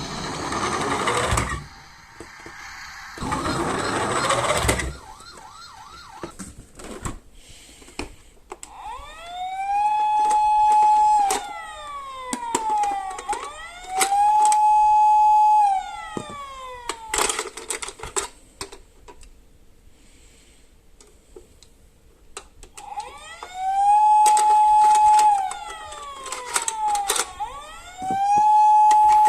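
Toy emergency vehicle's siren sounding a wail that rises, holds steady and falls, repeating about every four seconds, in two runs with a pause between. Two short bursts of noise come first, and light clicks are scattered throughout.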